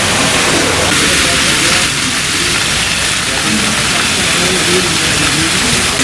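Rain falling in a steady, even hiss.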